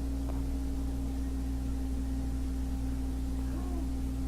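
Steady low electrical hum with a few fixed tones at an even level, and a faint click under half a second in.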